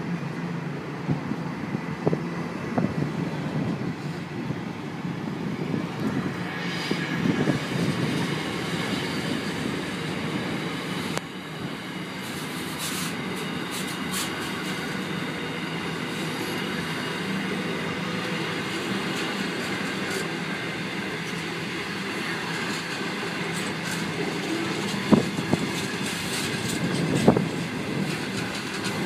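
Intermodal container train's wagons rolling past steadily, wheels clacking over the rail joints, with a thin high squeal from the wheels from about six seconds in and a couple of sharper clacks near the end.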